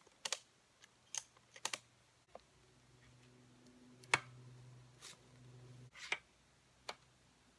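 Scattered light clicks and knocks from handling the metal hang-on tree stand and its strap hardware, the sharpest a little after four seconds in. A faint low steady hum comes in for a few seconds in the middle.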